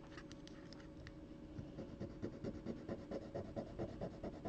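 A small metal heart pendant rubbed back and forth on a black jewelry testing stone, a faint quick rasping at about four strokes a second that starts about a second and a half in. The scratching lays down a streak of the metal for an acid test for sterling silver.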